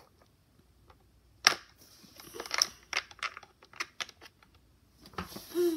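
Hard plastic toy pieces clicking and knocking as a hand handles a Littlest Pet Shop figure and toy plane, seating the figure in the cockpit. One sharp click about a second and a half in, then a run of small clicks and rustles.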